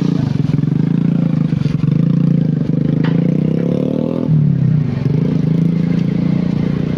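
SANY excavator's diesel engine running under hydraulic load as the boom and bucket are moved; the engine note climbs for a few seconds, then drops sharply and settles back about four seconds in.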